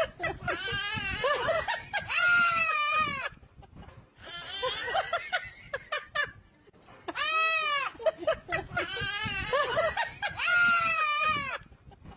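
A young goat kid bleating and a toddler shrieking back at it, trading about six calls in turn with short gaps between them. Some calls are smooth and arching, others wavering and shaky.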